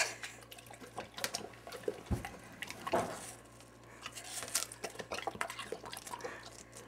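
Dog eating watermelon from a hand: irregular wet chewing, smacking and slurping clicks.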